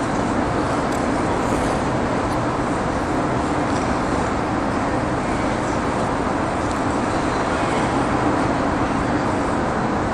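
Steady rushing hum of an indoor ice rink's air-handling and refrigeration machinery, a constant low drone with no breaks.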